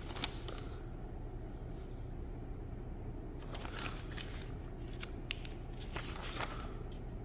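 Pages of a small paper user manual being flipped and handled: crisp page flicks and soft paper rustles, bunched from about three and a half seconds in, over a low steady hum.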